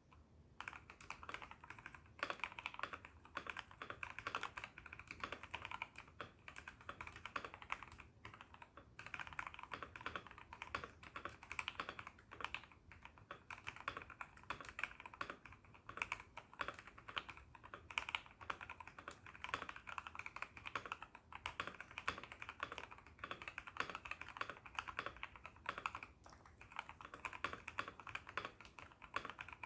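Continuous typing on a TM680 mechanical keyboard with lubed Gateron Ink Black linear switches and XDA keycaps, set on a deskmat: a fast, irregular run of keystroke clicks with a few short pauses.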